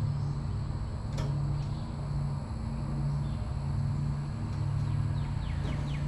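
A low steady machine hum that swells and eases slightly about once a second, with a single click about a second in.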